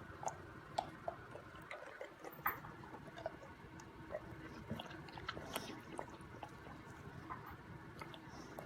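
An American bulldog puppy chewing and crunching a hard ice cube: faint, irregular crunching clicks.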